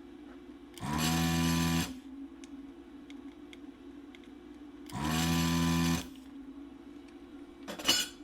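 Desoldering station's vacuum pump switched on twice, each time spinning up with a rising whine and running for about a second as it sucks solder off capacitor leads, over a steady low hum. A short sharp click near the end.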